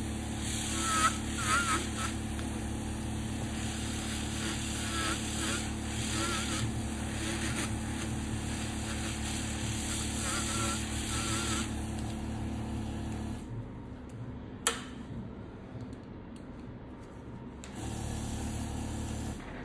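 Podiatry electric nail drill running as its burr grinds down thickened fungal toenails, the pitch of its whine wavering as it bears on the nail. The motor stops about 13 seconds in, then comes a single sharp click and, near the end, a low hum.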